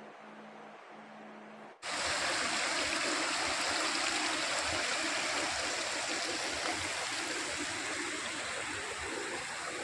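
Faint steady hum, then about two seconds in a stream of water rushing over rocks starts abruptly and runs on as a steady rush.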